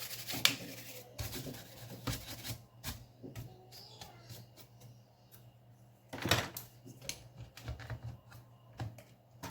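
Small irregular clicks and scraping of parts being handled as the battery is fitted into the open MSI GL62M laptop. There is a louder clatter about six seconds in.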